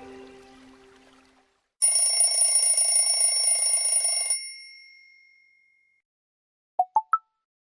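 Tecno HiOS 14 phone sounds: a melody's tail fades out, then the timer sound, a bell-like electronic ring lasting about two and a half seconds that stops suddenly and rings out. Near the end comes the notification sound, a quick three-note rising chime.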